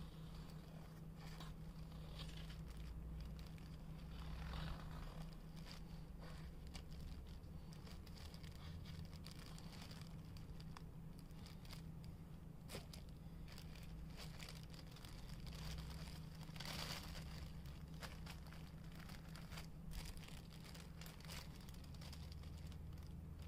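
Thin plastic bag crinkling and rustling faintly as it is handled with a glue-coated cardboard strip lying on it, with scattered small clicks and two denser rustles, about four seconds in and again near seventeen seconds. A steady low hum runs underneath.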